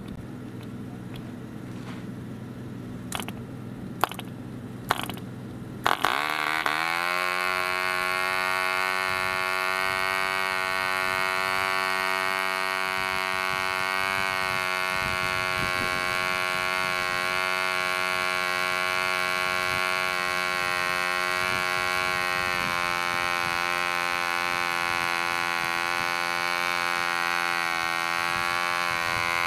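E.D. Comp Special 2 cc model diesel engine, a long-stroke sideport design from about 1948, being hand-started by its 9x6 propeller. A few single sharp clicks are heard, then about six seconds in it catches. Its pitch rises quickly and it settles into a steady high-speed run.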